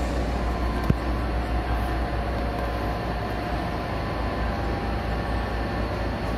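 Steady hum and hiss with a strong low rumble, like a running fan or air-conditioning unit, with a single sharp click about a second in.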